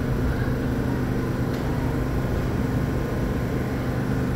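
R46 subway car standing at a station platform, its onboard equipment running with a steady low hum.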